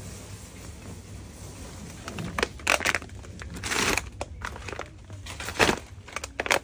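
Foil-lined insulated cooler bag being opened and handled, its plastic crinkling and crackling in irregular bursts from about two seconds in, over a low steady hum.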